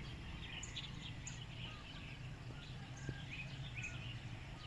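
Birds chirping and calling in short, scattered notes over a low steady hum.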